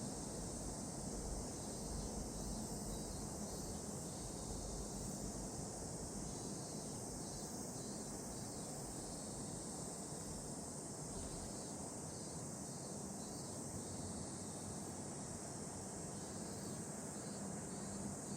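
Cicadas calling in chorus: a steady, high-pitched drone with no breaks, over a low background rumble.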